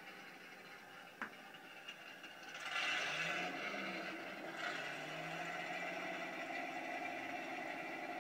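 Simulated Panther tank engine sound from an IBU2 Pro sound unit, played through a transducer in a Heng Long RC Panther's hull, running steadily with a low, even pulse. There is a single sharp click about a second in, and a louder rush of noise for about two seconds from around three seconds in.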